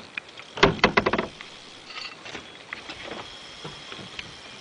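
Knocks and clicks of handling in a small fishing boat: a quick cluster about half a second in, then a few faint scattered ticks.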